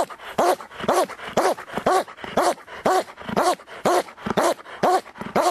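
Large shepherd-type dog barking aggressively at a training helper's bite pillow, in a steady rhythm of about two barks a second: the guard barking of protection training.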